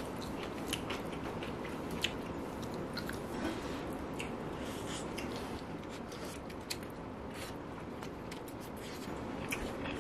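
A person chewing and biting food at close range: wet mouth smacks and many small scattered clicks over a steady low hiss.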